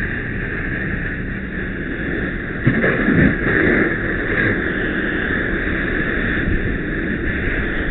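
Steady rumbling, rushing noise beside a heavily burning building fire, with a louder rush about three seconds in.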